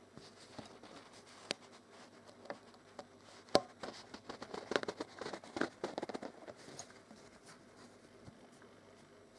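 Fabric rustling and light clicks as a stitched test strip of cloth is handled and pulled from under a sewing machine's presser foot, with one sharp click about three and a half seconds in and a denser patch of rustling just after.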